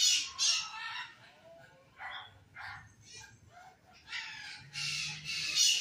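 Dogs barking in short, scattered barks, mixed with harsh bird squawks.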